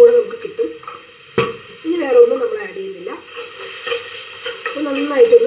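A steel spoon scraping and stirring diced vegetables sizzling in oil in a metal kadai, with one sharp knock of metal on metal about a second and a half in.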